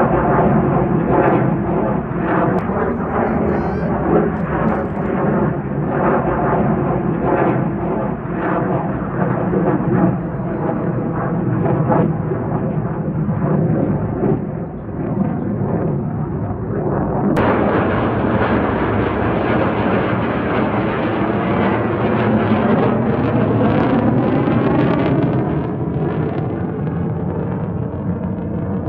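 Jet engines of a tailless fighter prototype, billed as China's sixth-generation fighter, running loud and steady overhead with a rapid crackle through the rumble. About seventeen seconds in, the sound cuts abruptly to a brighter take with a sweeping, phasing character as the jet passes.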